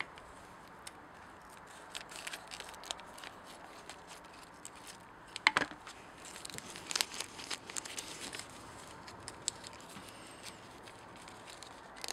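Paper parts packet being torn open and crinkled by hand, with scattered rustles and crackles, one sharp tap about five and a half seconds in and a run of crinkling soon after.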